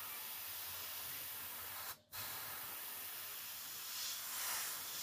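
Airbrush hissing as it sprays heavily thinned brown paint in small camouflage mottles onto a model tank hull. It breaks off for a moment about two seconds in and comes back louder near the end as the trigger is pulled further.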